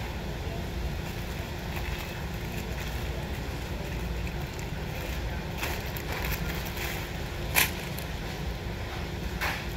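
Paper burger wrapper crinkling as it is peeled open, over a steady low rumble. A sharp tap about three-quarters of the way through, and another crinkle and tap near the end.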